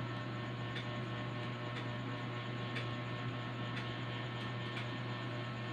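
Steady low hum with a thin, faint high tone above it, and a few faint clicks about a second in, near three seconds, and near the end.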